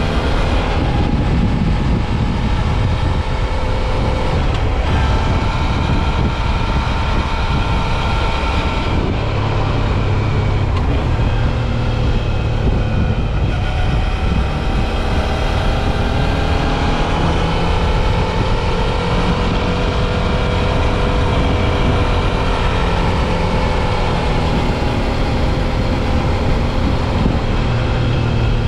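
Suzuki V-Strom 650 XT's 645 cc V-twin engine running at road speed, its pitch rising and falling gently with the throttle, over steady wind and road noise.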